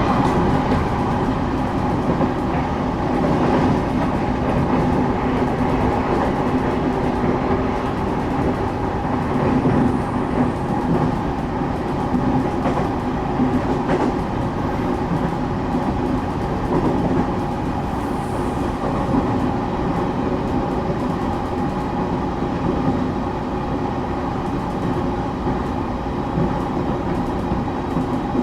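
Steady running noise inside the passenger car of a moving train: a constant rumble with a steady hum and occasional faint clicks of the wheels on the rails.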